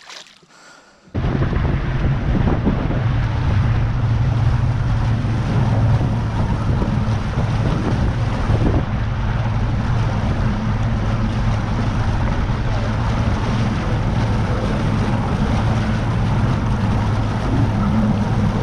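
Bass boat's outboard motor running steadily at speed, a loud, even low hum with wind buffeting the microphone and water rushing past the hull. It starts suddenly about a second in.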